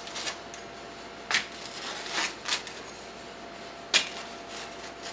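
Rolling pizza cutter wheel slicing through a baked pizza crust on a metal pizza pan: several sharp cutting strokes, the loudest about one and a half and four seconds in.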